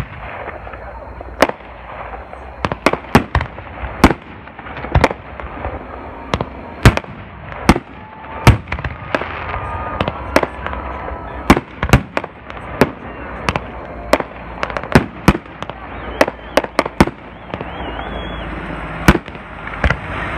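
Aerial fireworks shells bursting in an irregular series of sharp bangs, one or two a second and sometimes close together, over a steady background rumble.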